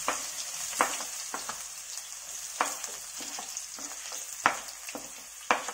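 Chopped onions sizzling as they drop into hot oil in a pan, a steady high hiss, with a few sharp clicks and taps every second or two.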